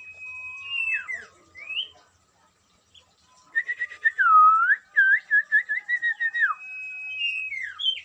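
A sirtu songbird singing clear whistles: a held note and quick falling slurs in the first two seconds, then after a pause a fast run of looping notes with one loud swooping note, ending on a long held whistle and falling slurs.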